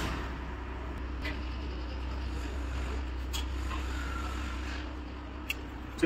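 Steady low background rumble, with a few faint light taps of a steel rule and square against the perforated steel cable tray as the marking is drawn.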